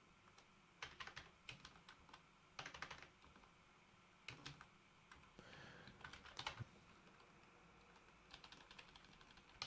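Computer keyboard being typed on, faint, in about six short bursts of keystrokes separated by pauses.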